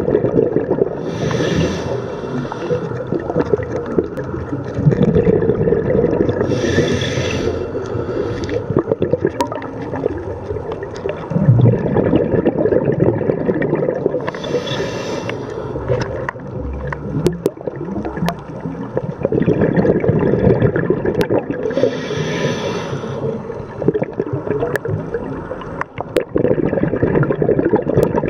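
Scuba regulator breathing underwater: a short hiss of inhaled air five times, about every seven seconds, with the bubbling gurgle of exhaled air between the breaths. Scattered sharp clicks run through it.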